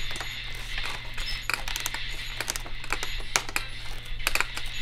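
A run of irregular sharp clicks and ticks, about a dozen, over a steady low electrical hum.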